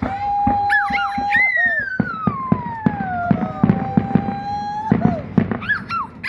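Fireworks display finale: a rapid string of bangs and crackles, with long whistling tones overhead, some held steady and some sliding down in pitch over a couple of seconds.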